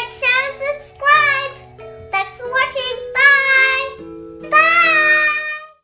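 A young girl's voice in sing-song phrases over light background music, with one long drawn-out word near the end.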